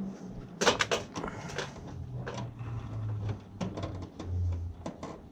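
Handling clatter while working at an HVAC control panel: a quick cluster of sharp clicks and knocks about a second in, then scattered lighter clicks, over a faint low hum.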